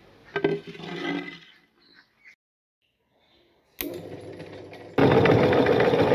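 Electric meat grinder starting up: a click and a low steady noise, then about a second later its motor runs loudly with a steady hum. A brief unidentified sound comes about half a second in.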